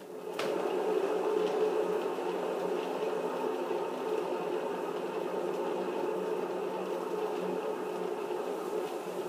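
A painting spinner (turntable) set turning with a knock about half a second in, then a steady whirring as it spins the canvas.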